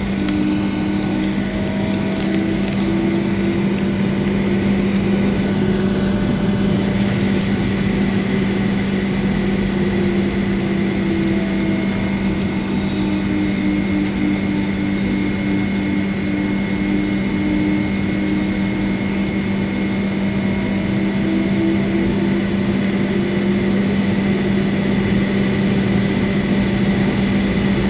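Boeing 757's jet engines running at low power on the ground, heard from inside the cabin over the wing: a steady drone with a strong low hum and fainter higher tones that slowly drift up and down.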